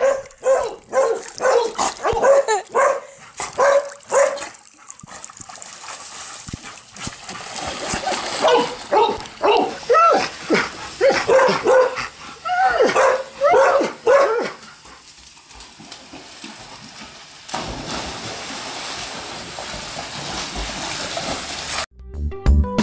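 Yellow Labrador retrievers barking: a quick run of short barks, a pause, then a second run of barks. Near the end, a steady rushing noise.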